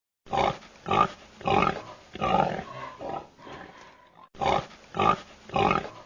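Domestic pig grunting: a run of short, rough grunts about two a second, with a brief pause a little past the middle.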